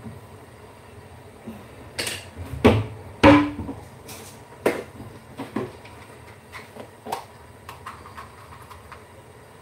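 Kitchen handling sounds: a string of knocks and clatters from things being picked up and set down, the loudest about two to three and a half seconds in, one of them ringing briefly, then lighter taps.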